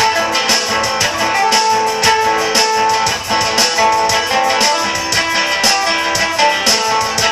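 Music led by strummed guitars or similar plucked string instruments, with a steady beat of about two strokes a second.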